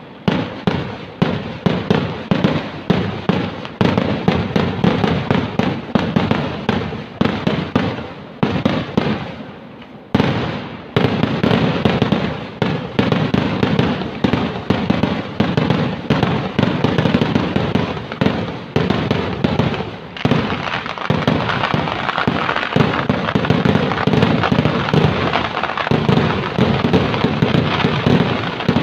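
Kerala festival fireworks (vedikettu) going off in a rapid barrage of loud blasts, several a second, which thin out briefly about nine seconds in and then resume as an almost unbroken rattle of explosions.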